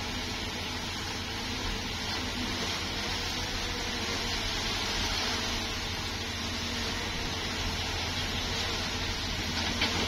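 Bulldozer's diesel engine running steadily under work, a continuous low engine drone with a broad mechanical noise over it. A single short knock near the end.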